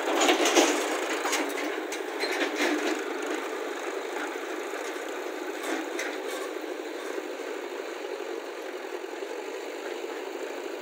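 Tractor engine running as it pulls a trolley loaded with soil over a dirt track, with sharp knocks and rattles in the first few seconds and once more about six seconds in.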